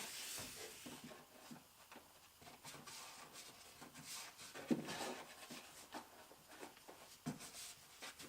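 Faint rustling and scattered light clicks and knocks of hands feeling around inside a car door shell, searching for a dropped bolt.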